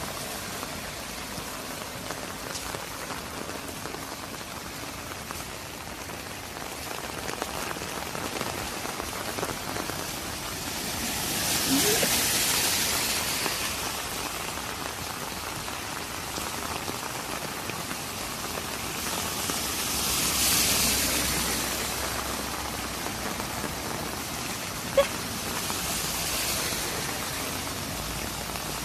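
Heavy rain pouring onto a flooded street: a steady hiss that swells louder twice, about twelve and twenty seconds in, with one sharp click a few seconds before the end.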